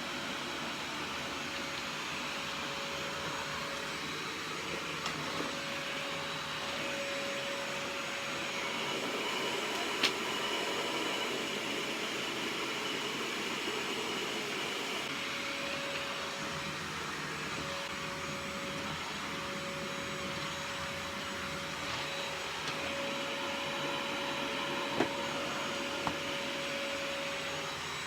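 Vacuum cleaner running steadily, with a steady whine that drops out and comes back several times. A few sharp knocks sound over it, the loudest about ten seconds in and two more near the end.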